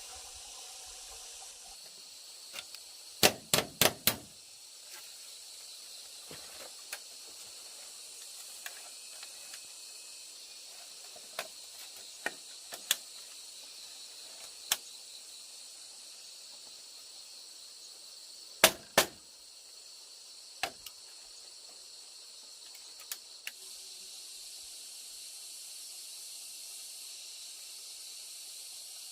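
Sharp knocks struck in short runs over a steady high hiss: four in quick succession about three seconds in, two more about two-thirds of the way through, and single knocks scattered between.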